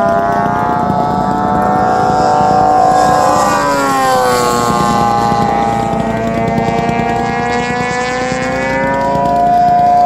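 Engines of giant-scale radio-controlled airplanes droning in flight, more than one at different pitches; their pitch slowly rises and falls as the planes pass, with one sweeping down while another climbs about four seconds in.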